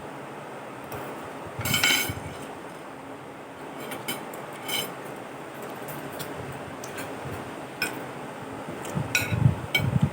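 Spoon and fork clinking and scraping against a plate as food is picked up: scattered clinks, loudest about two seconds in, with a busier cluster near the end.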